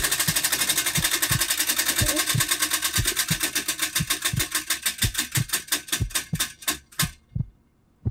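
Prize wheel spinning, its pointer clicking rapidly against the pegs; the clicks space out as the wheel slows and stop about seven seconds in when it comes to rest.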